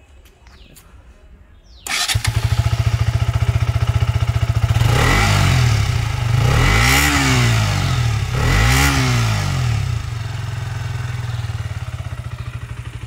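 KTM Duke 125 BS6's single-cylinder 125 cc engine starting about two seconds in and idling, blipped twice in the middle with two rising-and-falling revs, then back to a steady idle. Its exhaust note through the BS6 underbelly muffler lacks the older KTM signature note but is decent.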